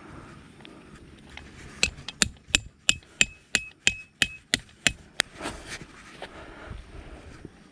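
A metal tent peg being hammered in: about eleven sharp strikes, roughly three a second, each with a short metallic ring.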